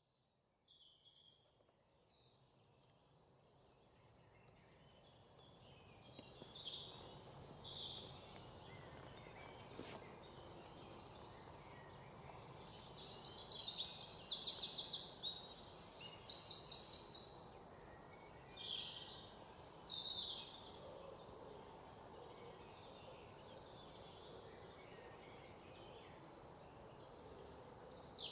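Forest ambience of several birds singing and calling: many high chirps and some fast trills over a faint steady hush. The sound fades in from near silence over the first several seconds.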